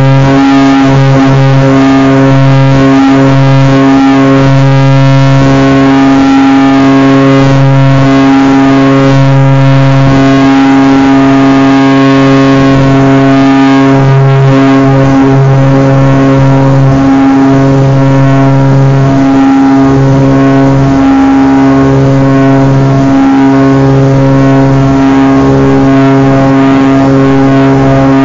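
Propeller airplane engines running at steady power during takeoff: a loud, even drone that holds one pitch, with a low note that wavers in and out.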